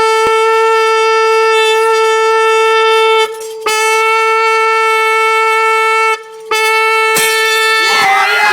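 Trumpet blowing one loud, steady high note, held in three long blasts with two short breaks for breath. About seven seconds in comes a sharp crack, and then a crowd starts shouting and cheering.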